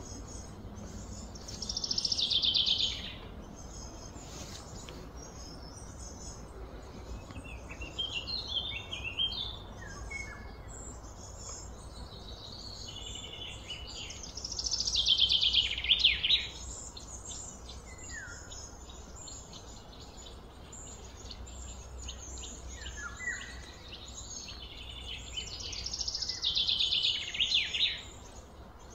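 Outdoor bird calls: three loud, fast trills that fall in pitch and last about two seconds each, spaced roughly twelve seconds apart, with short chirps scattered between them, over a steady low background rumble.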